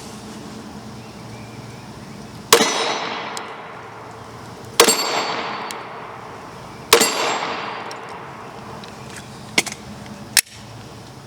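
Glock 43 9mm pistol fired three times, about two seconds apart, each shot trailing off in a long echo. Two quieter, sharper clicks follow near the end.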